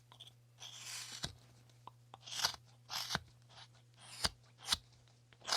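Carving blade shaving basswood in a series of short slicing strokes, about six of them with small clicks between, trimming saw marks off the top of the block.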